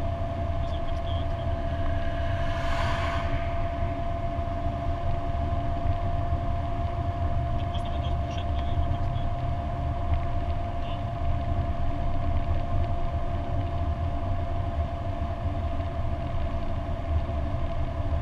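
Lancia Delta HF Turbo heard from inside the cabin while cruising at a steady speed: a steady low engine and road drone with a constant whine above it. A brief hiss swells and fades about three seconds in.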